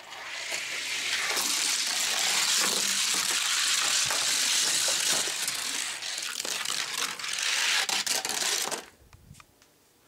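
Two 1:64 Hot Wheels die-cast cars, a Bone Shaker and a T-Bird Stocker, rolling fast down a gravity race track: a steady hissing rattle of small wheels on the track that stops suddenly about nine seconds in.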